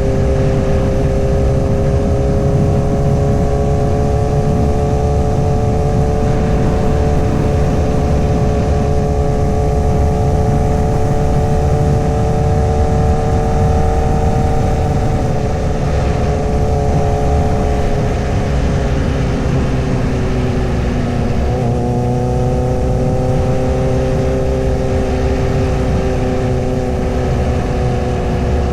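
2008 Honda CBR1000RR's 999cc inline-four engine running at steady cruising revs, over a heavy low rumble of wind and road. Its pitch eases down about two-thirds of the way through, then holds steady again.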